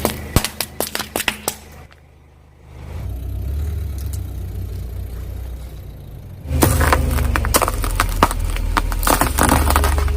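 Car tyre crushing brittle objects, with a quick run of sharp cracks. Then the car's engine runs at low speed, and about six and a half seconds in comes a louder stretch of crunching and cracking over the engine.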